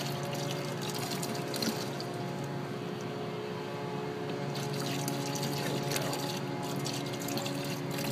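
Engine coolant pouring steadily from the generator's opened cooling line into a bucket as the system drains, over a steady hum.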